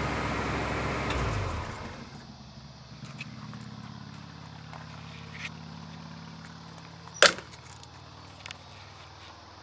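The Jeep's 327 small-block V8 idling, loud at first, then much quieter after about a second and a half and going on as a low, steady hum. One sharp knock about seven seconds in.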